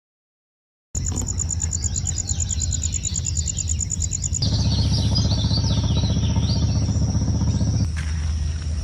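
Outdoor night-time insects, crickets among them, trilling in a fast high pulse with scattered small chirps over a steady low rumble. The sound begins about a second in after a moment of silence. A deeper hum joins about halfway through and drops away near the end.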